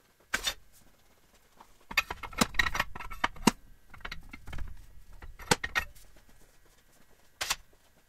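Metal-on-metal knocks, clinks and rattles as a metal rod is handled inside an aluminum wheel rim on a steel welding table: a single knock near the start, a quick cluster of sharp strikes around the middle, and a few more knocks later.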